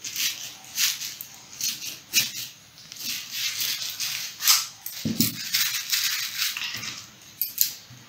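Thin plastic carrier bag crinkling and rustling as it is cut with scissors, in irregular bursts of crackle that come thickest through the middle.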